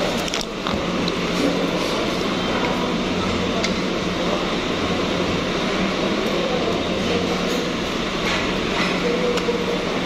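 Restaurant room noise: a steady hum of air conditioning under faint background chatter, with a few sharp clicks and clinks.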